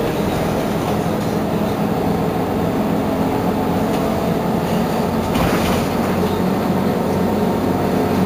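Mercedes-Benz Citaro G C2 articulated bus engine idling steadily with the bus stationary, with a brief hiss about five seconds in.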